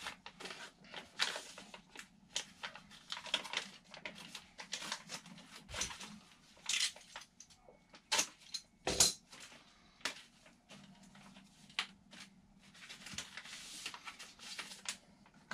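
Clear plastic packaging bag crinkling and rustling in irregular crackles as it is handled and pulled open around a model glider fuselage, with a louder knock about nine seconds in.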